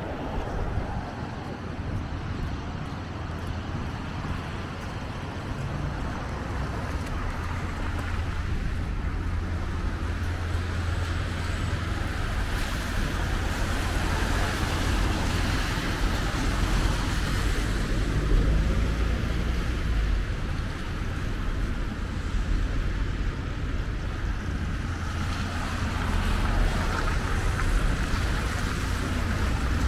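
City street traffic on wet roads: cars passing one after another, their engines rumbling and their tyres hissing on the rain-soaked asphalt, swelling and fading as each goes by.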